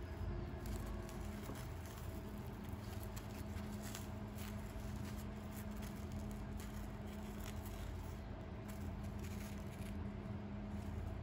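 Soft crackling and faint tearing as hands pull apart a freshly baked pandesal roll with a breadcrumb-coated crust, over a steady low hum.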